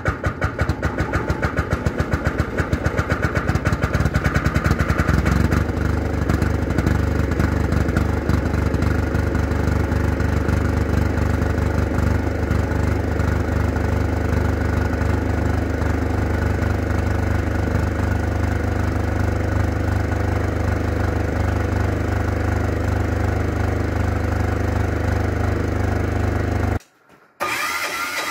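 5 kW diesel generator engine running in the cold at −5°C, heard at its exhaust outlet, just after a cold start. For the first few seconds it runs in distinct, evenly spaced beats, then settles to a steady run from about five seconds in. It cuts off briefly near the end.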